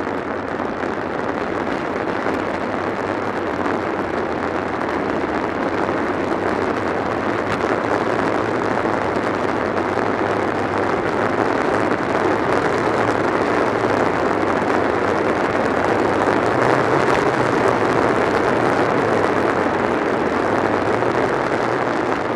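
Wind rushing over the microphone of a bike-mounted camera on a fast road-bike descent: a steady rushing noise that slowly grows louder as the speed climbs from about 32 to 46 mph.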